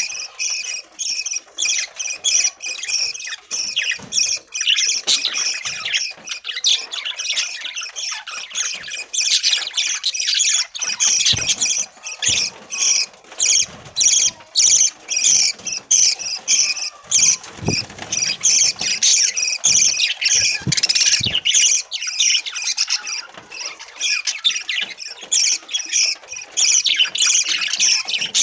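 A flock of budgerigars chirping and chattering continuously, many calls overlapping, with a few faint dull knocks midway.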